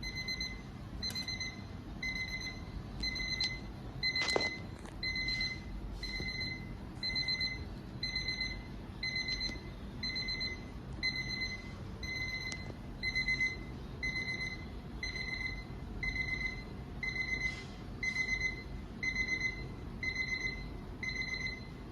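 Electronic alarm clock beeping: a steady train of short, evenly spaced, high-pitched beeps, sounding for an alarm-function and loudness test against a decibel meter. A single sharp click is heard about four seconds in.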